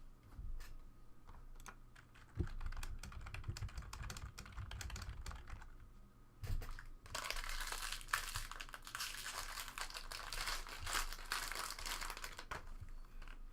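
Trading cards being handled in a pack break: a run of quick light clicks as the cards are flicked through one by one. From about seven seconds in comes some five seconds of dense rustling and crinkling of cards and wrapper.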